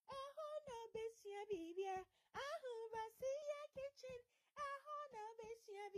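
A high singing voice in short, choppy sung phrases with brief gaps between them, typical of a channel's intro jingle.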